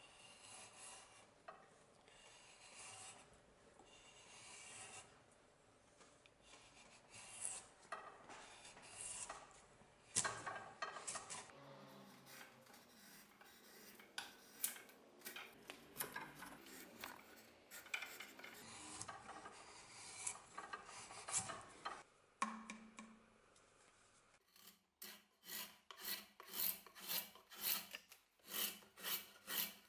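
A Peugeot Frères carpenter's drawknife is pulled along wood, shaving it with scraping strokes: first uneven strokes peeling bark from a branch. Near the end come quick, even strokes, about two a second, as it shaves a squared board.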